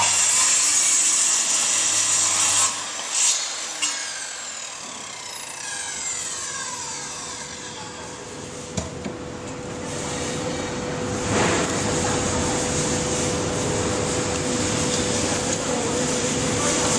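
Prescott electric circular saw cutting through a wooden plank, then the blade spinning down with a falling whine once the trigger is released. After a click, the saw runs again for the last several seconds.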